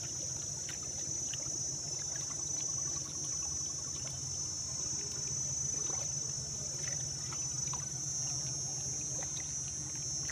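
Steady high-pitched insect chorus, with a low steady hum underneath and faint scattered clicks.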